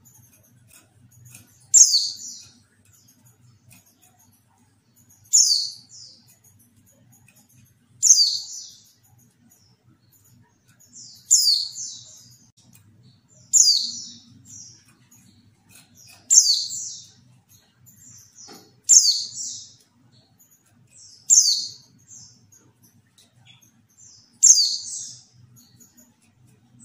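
Female white-eye (pleci) calling: nine short, high calls, each falling quickly in pitch with a trailing tail, repeated about every two and a half to three seconds. This is the female call that keepers play to stir male white-eyes into singing.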